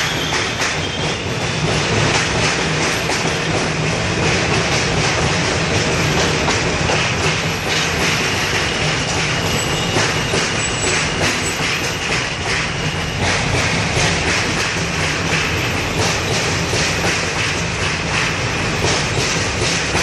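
Subway train crossing a bridge: a steady loud rumble of wheels on rails with repeated clacking and a thin, high wheel squeal through much of it.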